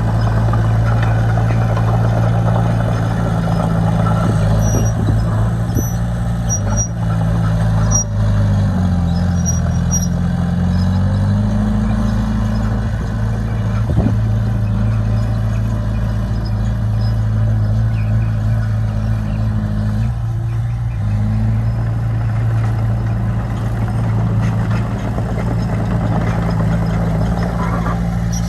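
Komatsu D20P bulldozer's diesel engine running steadily under load, its pitch sagging and recovering once about nine seconds in. Short, faint high squeaks come through during the first ten seconds.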